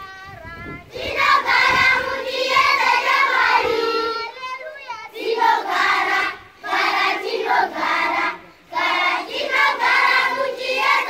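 A large group of schoolchildren singing their school anthem together, unaccompanied, in phrases with short breaks between them; the full group comes in about a second in.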